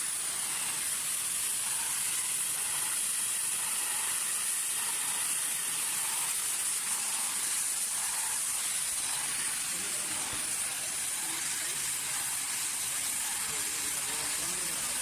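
Oxy-fuel cutting torch on an automatic gas cutting machine, hissing steadily while it cuts.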